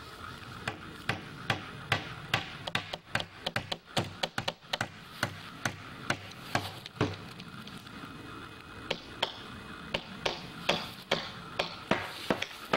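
Footsteps through dry fallen leaves, grass and brush: irregular crunching with sharp cracks of twigs, easing off for a moment a little past halfway.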